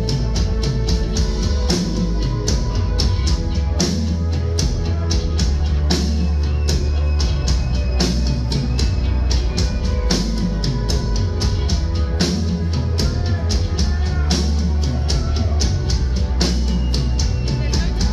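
Live rock band playing: a steady drum-kit beat with regular cymbal strokes over bass, guitar and keyboards, heard from within the audience.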